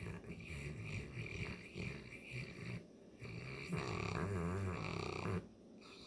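A St. Bernard snoring in two long, rattling breaths, the second louder and ending abruptly. It is congested snoring that the owner puts down to allergies.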